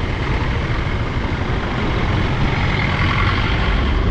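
Motorcycle riding in city traffic: steady engine, road and wind noise, with a faint higher tone joining in during the second half.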